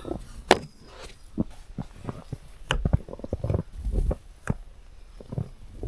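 Snow brush sweeping heavy fresh snow off a car, with irregular scrapes and crunches and soft thuds as clumps of snow drop into the deep snow below, and boots crunching in the snow. A few deeper thumps come around the middle.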